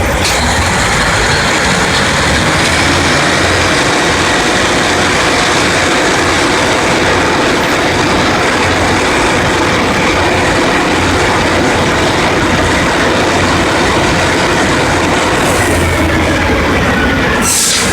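Drilling rig floor machinery running: a loud, steady mechanical din, with a short sharp hiss near the end.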